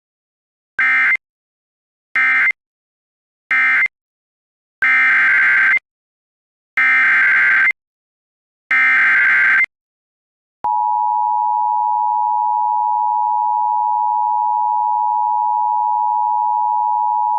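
Emergency Alert System tones. Three short end-of-message data bursts close one alert, then three longer warbling SAME header data bursts open the next. About ten seconds in, the steady two-tone attention signal starts and holds.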